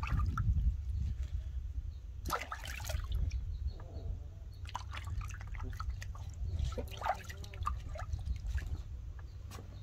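Water sloshing and dripping in a plastic tub as a puppy is washed by hand, with scattered small splashes and drips.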